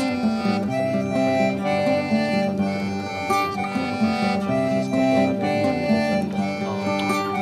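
Background music: a melody of held notes, changing pitch every half second or so, over a lower accompaniment.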